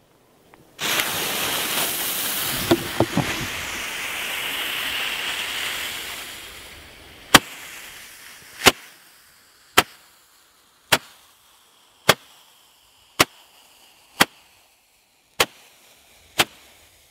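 Lesli 10-shot Roman candle: after lighting, a loud fizzing hiss for about six seconds that slowly fades, then the candle fires its shots one after another with a sharp pop about once a second, nine pops in all.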